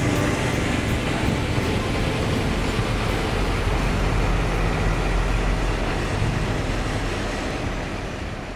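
Scania truck's diesel engine running as the truck drives slowly past, with a deep low hum that is loudest as it passes close about halfway through, then fades away near the end.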